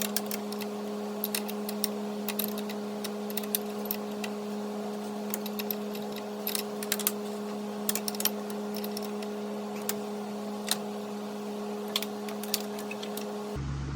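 Irregular light metallic clicks and clinks of a stubby wrench working the fittings of a hydraulic hose, over a steady low hum.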